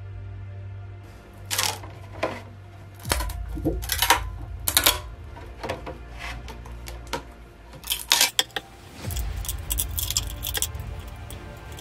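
Background music, and from about a second and a half in a run of sharp clicks and crackles as a thin metal 3D-printer build sheet is lifted off the bed and flexed to pop the printed mask free of it.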